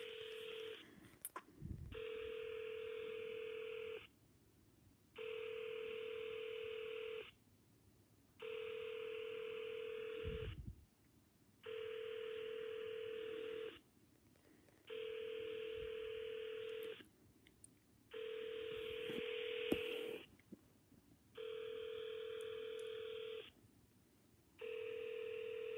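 Telephone ringback tone from an iPad held to the ear: a steady tone about two seconds long, repeating about eight times with a second's gap between. The call is ringing unanswered.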